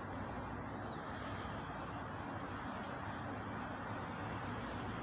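Small birds chirping, a few short high chirps in the first half and one more near the end, over a steady low outdoor background hum.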